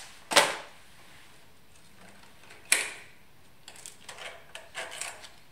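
Two sharp snaps a little over two seconds apart, then a run of smaller clicks and crackles as a stiff, cured carbon-fiber ribbon is worked loose from a thin sheet-metal spiral form by hand.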